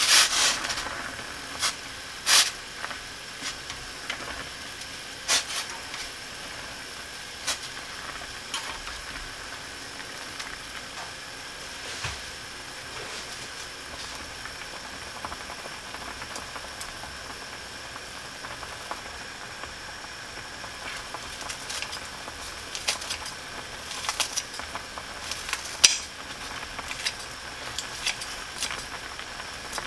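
Ramyeon boiling in a stainless steel saucepan over a gas flame, a steady hiss. Chopsticks clink against the pot in the first couple of seconds, and near the end a run of sharp clicks as kitchen scissors snip green onion into the pot.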